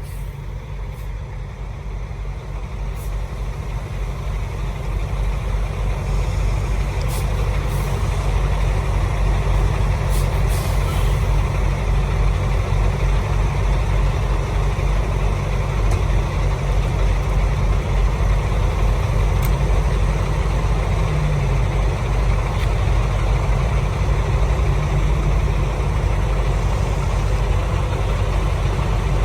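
Semi truck's diesel engine running, getting louder over the first several seconds and then holding steady, with a few short air hisses.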